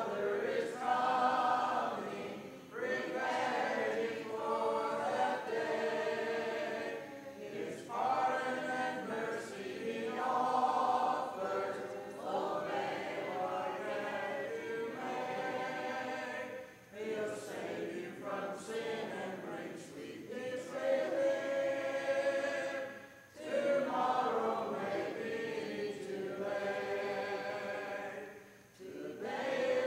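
Congregation singing a hymn a cappella in four-part harmony, the phrases broken by brief pauses for breath.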